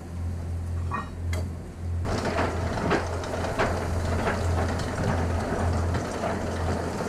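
Steel anchor chain clattering as it is pulled out of the boat's locker and across a concrete dock: a few separate clinks at first, then a continuous rattle of links from about two seconds in. A steady low hum runs underneath.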